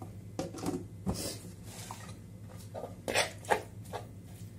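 Several short knocks and scrapes as a spoon and a plastic mixing bowl are handled, loudest twice about three seconds in, over a steady low hum.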